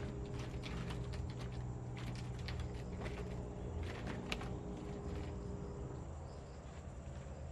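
Forest ambience: a steady high-pitched insect drone, with scattered crackles and ticks of dry leaves and twigs being stepped on or handled, two sharper snaps near the start and about four seconds in.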